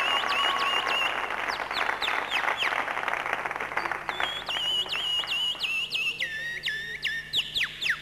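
A man whistling an imitation of a common nightingale's song. Held high whistled notes alternate with runs of quick, repeated downward-sweeping notes, and a lower held note comes near the end. Applause is heard at the start.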